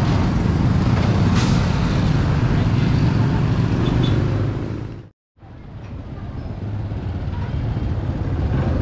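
Street traffic: a steady rumble of passing vehicle engines. A little past halfway it fades out to brief silence, then fades back in.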